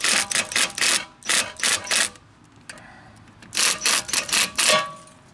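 Cordless impact wrench hammering in a run of short bursts, driving bolts into the threaded holes of a rust-seized brake rotor to force it off the hub. It stops for about a second and a half in the middle, then gives three more bursts. The bursts are kept short so the bolt threads don't strip.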